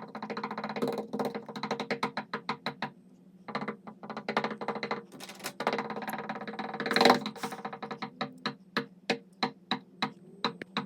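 Knocking on a door over and over, in runs of quick knocks several a second with short pauses between the runs.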